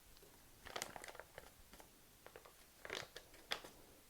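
Faint scattered clicks and short rustles of kitchen handling, clustered about a second in and again near three seconds, as hot sauce is measured out and added to a mixing bowl.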